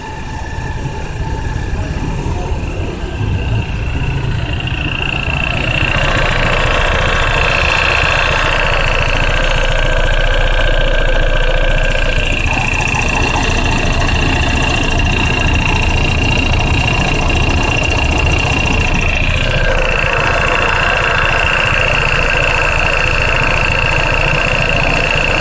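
Honda PCX 150 scooter's single-cylinder engine idling steadily, with a thin steady high whine over it, growing louder over the first few seconds. The owner finds the sound odd and likens it to a lawn mower.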